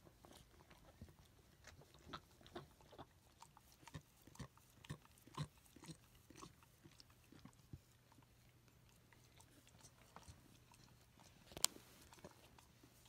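Pembroke Welsh Corgi mother licking her newborn puppy: faint, irregular wet licking and smacking sounds, with one sharp click near the end.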